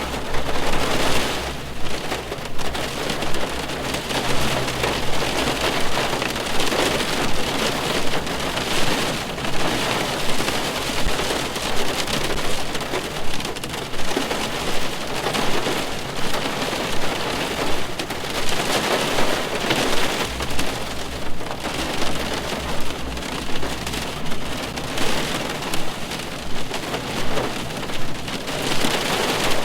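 Steady rain falling on a car, heard from inside the car: a dense, even patter of drops that swells slightly in loudness about once a second.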